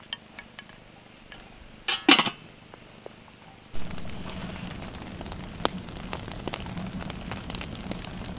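A metal cooking pot clanks loudly twice, about two seconds in, with a brief high ring after it. From about four seconds, split wood burning in a small steel tent woodstove crackles and pops over a steady rushing noise.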